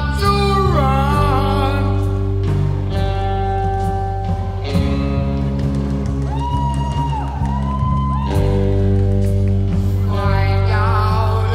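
A song playing loudly: a vocal line with bending, held notes over sustained low bass and a steady beat.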